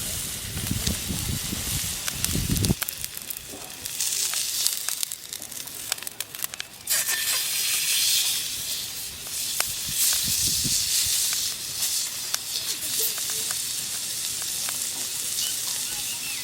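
Thick steak sizzling on a 5 mm black-skin iron griddle plate over a wood fire: a steady high hiss dotted with sharp pops and crackles.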